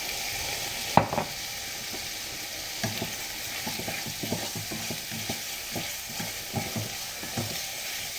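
Chicken pieces sizzling as they sauté in a hot pan, stirred and scraped with a utensil: a steady frying hiss with short scraping strokes about twice a second, and one sharp knock against the pan about a second in.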